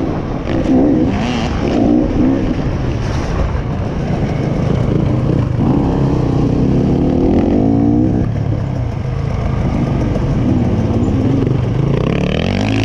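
Enduro dirt bike engine running under load, heard from on the bike, its pitch rising and falling continually as the throttle is opened and closed.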